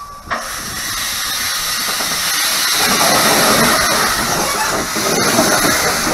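Austerity 0-6-0 saddle tank steam locomotive moving slowly, with steam hissing from its open cylinder drain cocks. The hiss grows louder from about a second in as the engine draws level.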